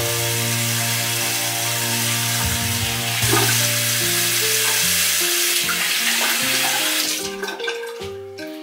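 Tap water running into a bathroom sink for face washing: a steady, loud hiss that dies away about seven seconds in.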